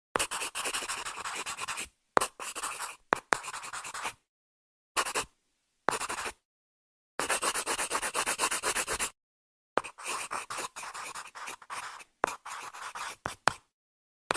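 Pencil writing on paper: runs of quick scratchy strokes lasting one to two seconds, broken by short total silences.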